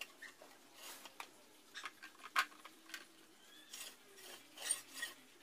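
Faint scattered clicks, taps and rubbing of hands handling and turning a small electric coconut-grinding machine; the motor is not running.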